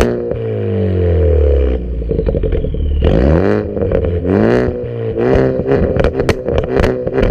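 Turbocharged Ford Focus ST, running catless with its muffler deleted, being revved. The engine note falls away after a rev, rises and falls with a blip around three seconds, then breaks into a rapid string of sharp exhaust pops and crackles over the last two seconds or so. These are the crackles and pops from its custom ethanol tune.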